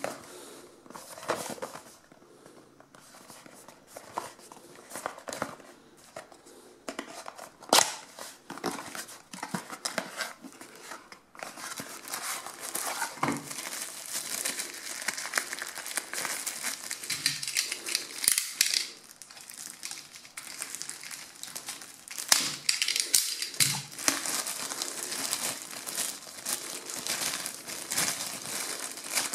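Cardboard box being handled and opened, with scattered rustles and clicks. About eleven seconds in it gives way to a thin plastic bag crinkling almost continuously as it is unwrapped, with sharp crackles now and then.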